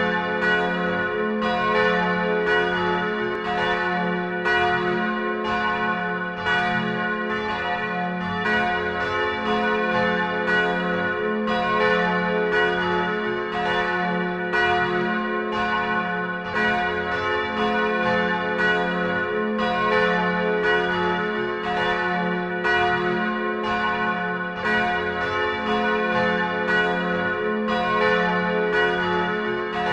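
Church bells pealing to call people to the Sunday service. Strokes come at a steady pace, about two a second, and overlap, with a long hum ringing on beneath them.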